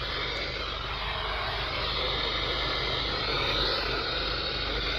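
Steady hiss of radio static with a low hum underneath, holding at an even level.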